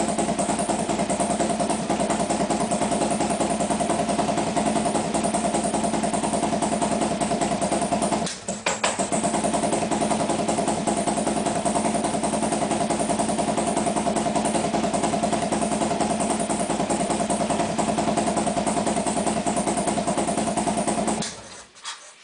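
Harley-Davidson V-twin motorcycle engine running steadily. It dips briefly about eight seconds in and then carries on, and it cuts off suddenly near the end.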